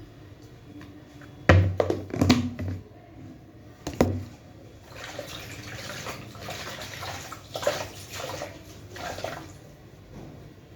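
A few sharp knocks and clatters of things being handled in a kitchen, the loudest sounds, followed by water running and splashing for several seconds from around halfway, as at a sink during kitchen cleaning.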